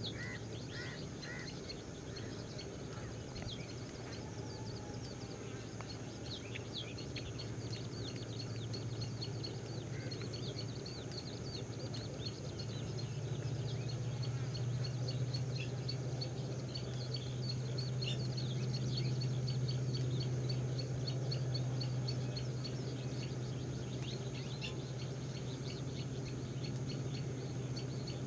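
Outdoor ambience of many short, high bird chirps scattered throughout, over a steady low hum that grows louder about halfway through.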